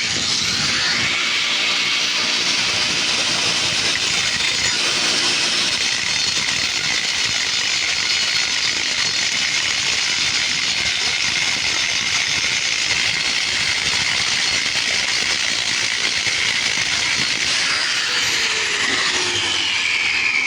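Angle grinder's grinding wheel held against the edge of a toothless steel saw blade spinning on a table saw, a loud steady grinding noise over the motors' hum. The rough edge left by the cut-off teeth is being ground round. Near the end the pitch falls away as the grinding eases off.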